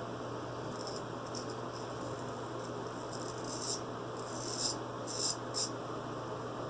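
Naked Armor straight razor scraping through lathered stubble in about six short, separate strokes, the loudest in the second half, over a steady low electrical hum.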